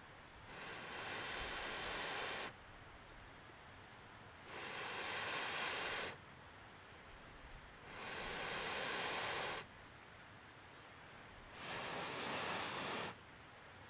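A person blowing long, steady breaths into a dry-grass tinder bundle to bring a smouldering ember up into flame. There are four blows, each a breathy rush lasting one and a half to two seconds, about three and a half seconds apart.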